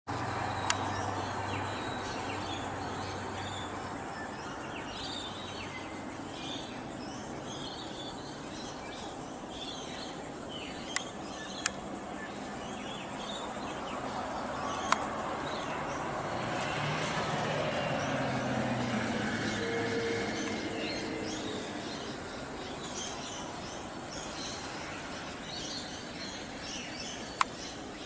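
Many small birds chirping against a steady hum of traffic, with a vehicle passing by in the middle, louder for several seconds. A few sharp clicks stand out.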